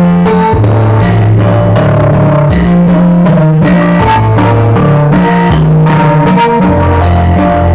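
Loud music played through a 10,000-watt sound system, with heavy sustained bass notes changing about once a second over a steady beat.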